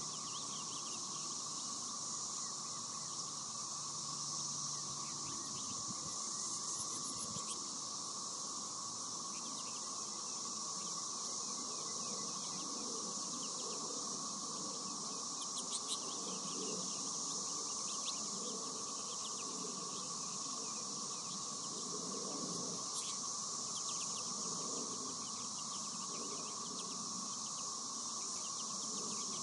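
Steady high-pitched outdoor insect chorus, with faint, scattered chirps and twitters of American goldfinches now and then.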